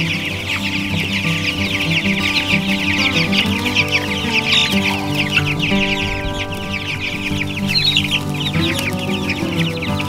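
A large brood of chicks peeping constantly, many short high chirps overlapping without a break, over background music.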